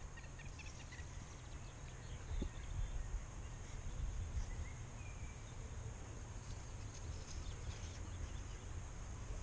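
Outdoor ambience: a low, gusting rumble of wind on the microphone, with a few faint bird chirps.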